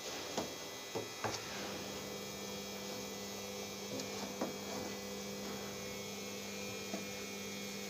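A wooden spoon stirring grated carrots in a steel pot, knocking lightly against the pot a few times, over a steady low electrical hum.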